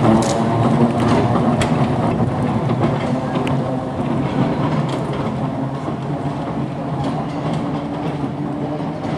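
Stockport Corporation Tramways open-top double-deck electric tram running away along the track: a steady low hum from the tram with a few sharp clicks of wheels on rail in the first seconds, slowly fading.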